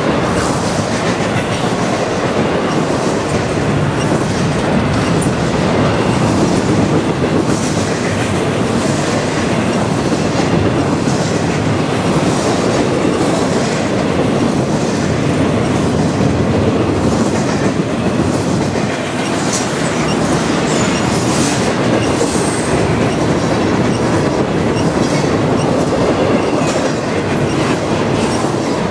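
Double-stack intermodal container cars of a freight train rolling past at close range: a loud, steady rumble of steel wheels on rail with a repeating clickety-clack as the wheelsets pass.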